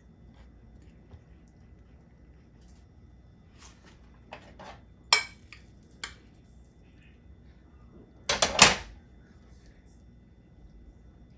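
Kitchen utensils clinking and knocking against a pot or bowl: a few single knocks, then a quick cluster of three or four near the end.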